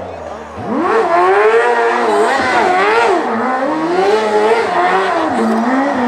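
Single-seat race buggy's engine revving hard, its pitch jumping up about half a second in and then rising and falling several times as the throttle is worked on and off.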